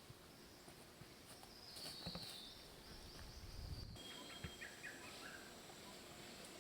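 Faint tropical rainforest ambience: a steady high drone of insects with a few scattered bird chirps over a low background hush.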